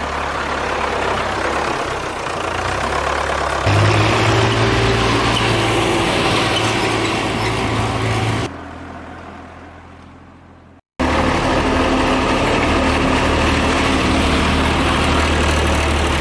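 Diesel tractor engine running steadily with a low hum. About halfway through it fades down and drops out for a moment, then comes back as steady as before.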